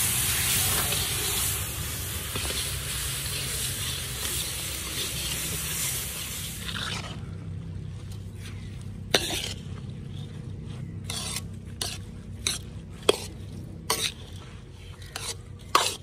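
Steady cooking hiss at a drum tandoor that dies away about seven seconds in. It is followed by a string of irregular sharp clicks and scrapes of metal on metal.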